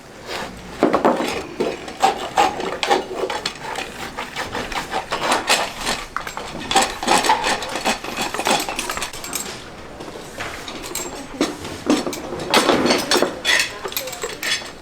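Farrier's hand tools working a racehorse's hoof: a quick, irregular run of scraping and knocking strokes.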